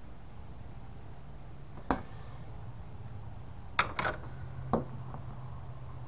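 A few short, sharp clicks and knocks, one about two seconds in and three close together near the four-second mark: hand tools and small computer parts being handled and set down on a wooden floor, among them a screwdriver laid down.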